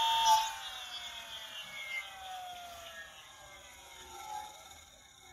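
Large DC motor, bigger than a car starter motor, whining at full speed off the revived car battery. About a third of a second in there is a click as the power is cut, and then the whine slides steadily down in pitch and fades as the motor winds down.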